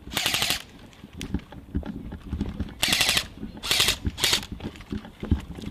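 Airsoft electric gun firing short full-auto bursts, each a rapid rattle of under half a second: one at the start, then three in quick succession about three seconds in.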